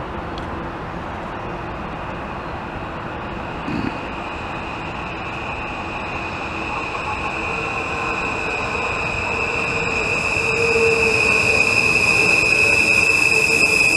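Dutch NS Sprinter electric commuter train approaching and pulling into the platform. It grows steadily louder, with a steady high-pitched squeal that strengthens as it nears, and a brief thump about four seconds in.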